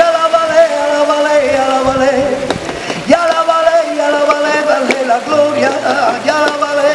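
A song: a man singing long, wavering held notes over instrumental accompaniment.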